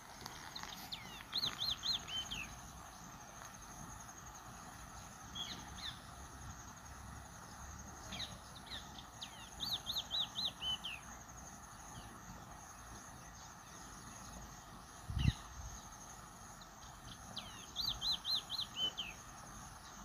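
A small songbird repeating a short song phrase of four or five quick high notes, the last ones dropping, three times about eight seconds apart, over a steady high insect drone. A single low thump comes about fifteen seconds in.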